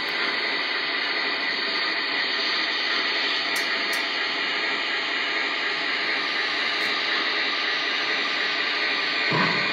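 Steady steam hiss from the sound system of a Lionel O-gauge Milwaukee Road S3 steam locomotive, the cylinder-steam effect as vapour puffs from its cylinders. Near the end a lower, louder sound comes in.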